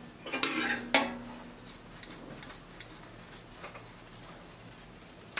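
Metal scissors clinking against the glass tabletop about a second in, a sharp knock with a brief ring, then faint scattered snips as the scissors cut the neckline through cotton print fabric and lining.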